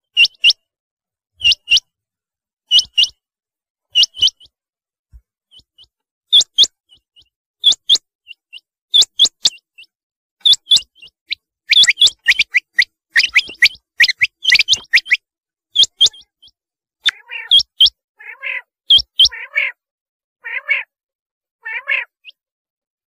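Rain quail calling: a sharp, high double note repeated a little over a second apart. About halfway through the calls come thicker and overlap, and near the end lower, rougher calls join in.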